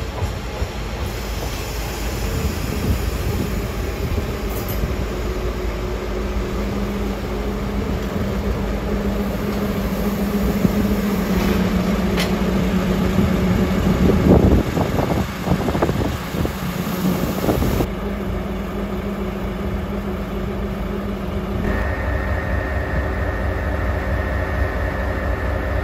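Diesel locomotive (a JR Hokkaido DE15) with its engine running in a steady hum, along with train and rail noise. It gets louder and rougher for a couple of seconds about halfway through, and a steady higher tone joins near the end.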